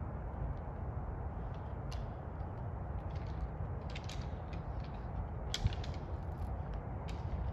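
Distant white-tailed buck antlers clacking and rattling as two bucks push and twist against each other: scattered sharp clicks and short rattles, the strongest a little past halfway, over a steady low rumble.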